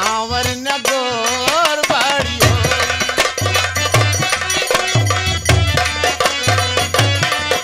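Live Bhojpuri folk stage music: tabla-type hand drums keep a steady beat under sustained melodic accompaniment. A wavering melody line sounds for about the first two seconds before the drumming settles into its regular pulse.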